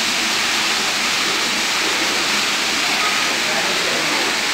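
Storm rainwater pouring steadily through a broken ceiling and splashing onto a flooded tiled floor, a constant rushing sound.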